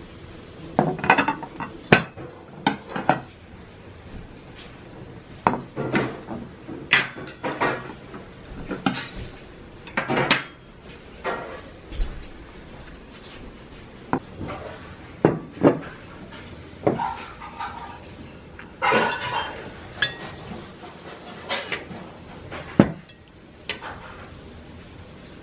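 Cooking utensils knocking and clinking against pots and pans in irregular strikes, some with a brief metallic ring.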